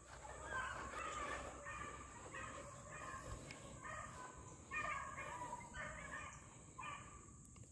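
A pack of beagles baying faintly in the distance, one bay after another with voices overlapping, as the hounds run a rabbit's scent trail.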